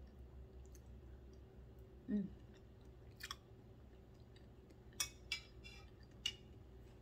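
A person chewing a mouthful of soft boiled breadfruit with wet mouth sounds, with a short closed-mouth hum about two seconds in and a few sharp clicks in the second half.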